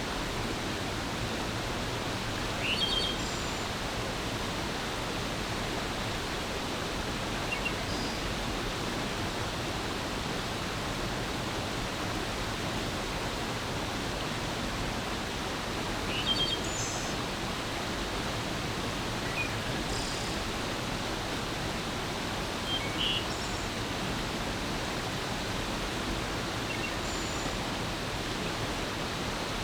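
Steady rush of a flowing forest stream, with short bird chirps every few seconds.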